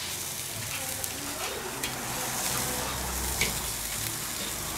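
Pork belly slices and other meat sizzling steadily over hot charcoal on a Weber kettle grill, with a few light clicks of metal tongs, the sharpest about three and a half seconds in.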